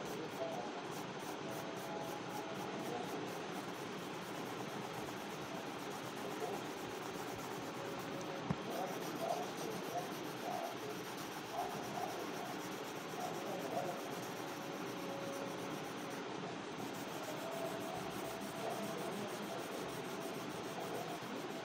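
Pencil scratching on paper in repeated shading strokes, filling in a drawn girl's hair, with a single sharp tap about eight seconds in.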